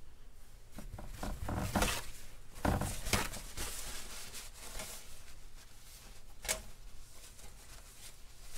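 Paper towel rustling and crinkling as it is handled, a run of scraping rustles in the first half, then a single sharp click.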